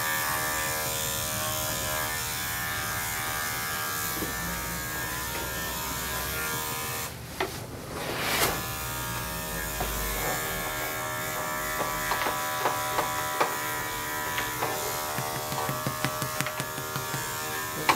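Electric dog grooming clippers running steadily with a motor hum, shaving a dog's matted coat down short. The hum drops briefly about seven seconds in, and light clicks come through in the second half.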